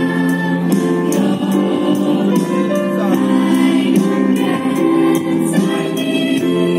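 Large choir of young mixed voices singing held notes in harmony, with instrumental accompaniment keeping a steady beat.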